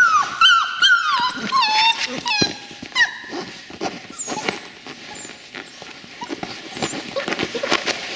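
Seven-week-old border collie puppies whining from nervousness: a run of short, high cries falling in pitch over the first three seconds, then scattered light taps.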